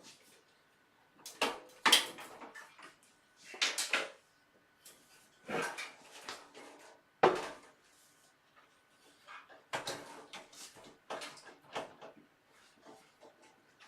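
Irregular metal clunks, knocks and scrapes from a power supply being worked loose inside a desktop PC case. It keeps catching, and a loud knock comes about two seconds in and again around seven seconds, then a quicker run of smaller clatters.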